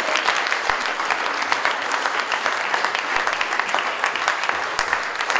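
Audience applause: many hands clapping at an even level throughout.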